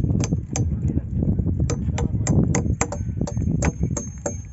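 Two hammers striking steel chisels against a concrete post: quick, irregular metallic clinks, about three a second, as the concrete face is chipped rough so plaster will bond to it.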